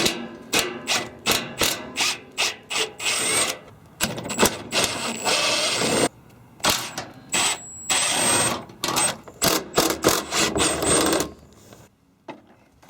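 A socket tool undoing the 8 mm bolts of the truck's skid plate. It starts with a quick run of short clicks, then runs several times for a second or two at a stretch with a thin high whine, and stops about 11 seconds in.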